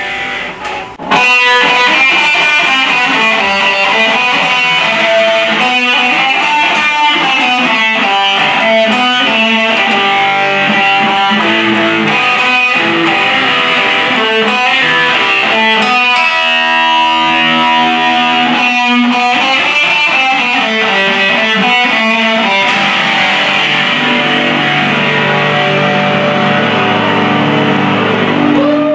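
Electric guitar played solo through an amplifier: quick single-note runs and licks, jumping louder about a second in, with longer held notes near the end.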